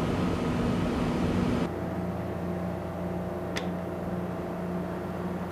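Steady hum of shipboard machinery. About a second and a half in it changes abruptly to a quieter, different hum, and a single sharp click comes about three and a half seconds in.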